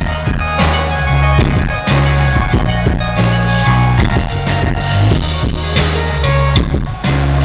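Loud live band music with heavy bass notes and a steady drum beat, recorded from the crowd on a small camcorder microphone, so the sound is poor and muddy.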